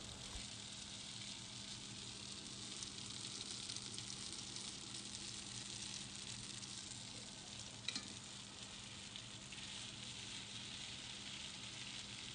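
Spaghetti and king prawns sizzling faintly in a frying pan as they are stirred through the sauce, with a single light utensil knock about eight seconds in.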